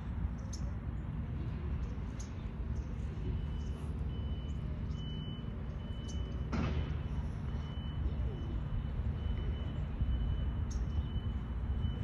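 Outdoor background of a steady low rumble with scattered short, high bird chirps. From about three seconds in, a faint high tone repeats in short, evenly spaced pulses.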